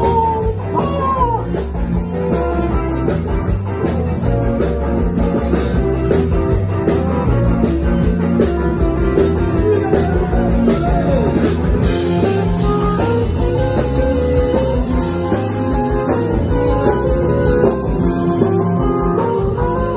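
Live rock band playing loud, with drums, guitar and keyboards, and a woman singing over it near the start.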